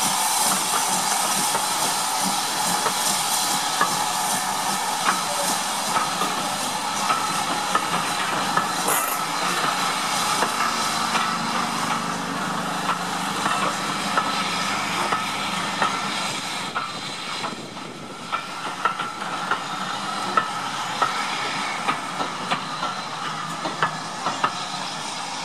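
Steam-hauled passenger train running past and away: the steady rumble and hiss of the carriages, with many sharp clicks of wheels over the rail joints, growing gradually quieter.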